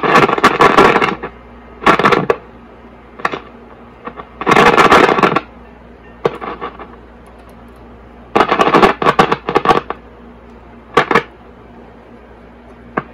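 Zenith Trans-Oceanic H500 portable tube radio's speaker giving loud, irregular bursts of crackling static, with a low steady hum between them. It is the first sign of life from the set after a dead 1U4 tube was replaced, with no antenna connected yet.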